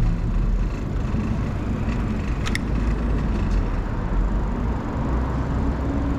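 Road traffic: a steady rumble of passing vehicles on a city street, with a few light clicks about two and a half seconds in.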